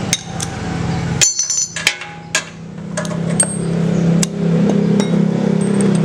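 Metal hand tools clinking and knocking on a Honda GX160 engine as its spark plug is taken out, with a dozen sharp clicks and one ringing metallic clink about a second in. A steady low engine hum runs underneath and grows louder after about three seconds.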